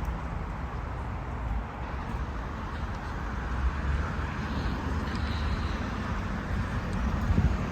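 Steady outdoor street noise with a low rumble throughout.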